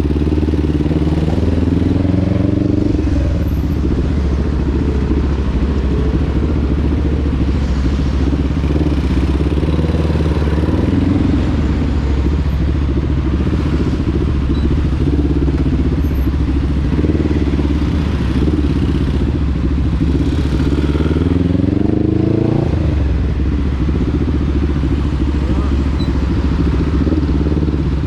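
Motorcycle engine running while riding, its pitch rising and falling with the throttle, with a sharper climb in revs about three-quarters of the way through before it drops back.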